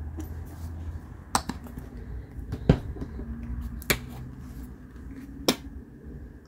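Large plastic acrylic paint squeeze bottles handled and set down on a wooden work table: four sharp knocks and clicks, the loudest about two and a half seconds in.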